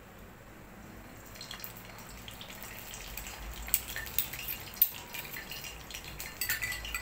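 Beignet dough frying in hot oil in a frying pan: the oil starts to sizzle and crackle about a second in and gets busier, with a few sharp clinks of a metal spoon against the pan and bowl.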